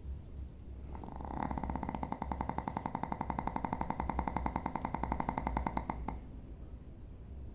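An animal snoring: one long snore of about four and a half seconds, starting about a second and a half in, made of a fast, even flutter.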